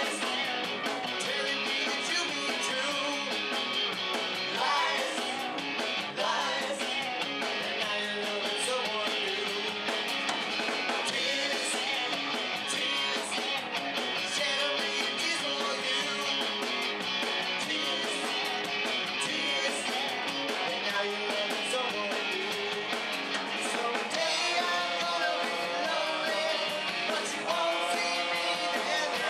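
Live rock band playing classic rock: electric guitar, bass guitar and drum kit, with a sung vocal over the top.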